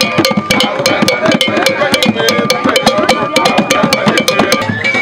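Lively dance music driven by percussion: rapid sharp wooden clicks, several a second, over drums, with held high notes running through it.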